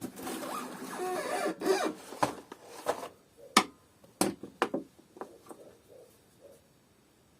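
Parts of a Kärcher DS5500 vacuum cleaner's casing being handled during disassembly: about two seconds of scraping and rubbing, then a series of sharp clicks and knocks that thin out and fade.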